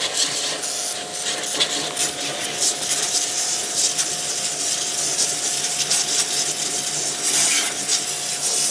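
High-pressure water jet from a QPT Q5 2500 W electric pressure washer spraying into a car's wheel arch and mud flap, a steady crackling hiss as the spray blasts mud off the panel. A steady thin whine runs underneath.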